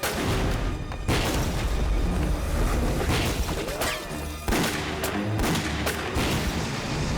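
Battle sound effects of gunfire and explosions: several sharp bangs and booms spaced a second or so apart, over background music.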